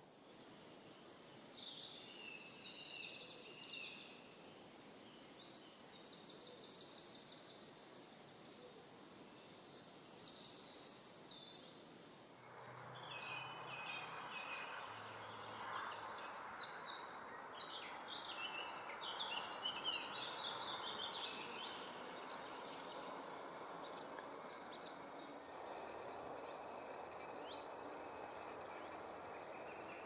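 Wild birds singing in woodland, with several songs of quick repeated trilling notes over a faint steady background hiss. About twelve seconds in, the hiss grows louder and more birds join in.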